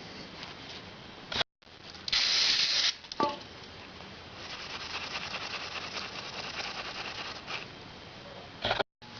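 Rasping scraping and rubbing on the metal of a motorcycle cylinder head's valve parts as carbon deposits are cleaned off. A loud rushing hiss comes about two seconds in, followed by a click. The sound drops out to silence twice, briefly.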